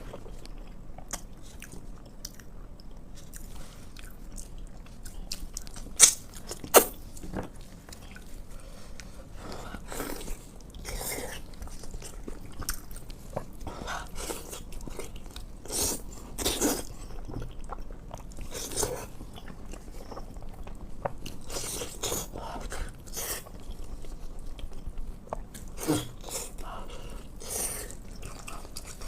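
Close-miked eating of pork in sauce: wet chewing, biting and smacking in an irregular run of short clicks, with two sharp loud bites about six seconds in.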